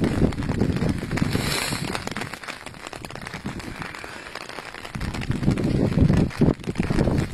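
Gusting wind buffeting the microphone with a crackling rumble. It eases for a few seconds in the middle and picks up again about five seconds in.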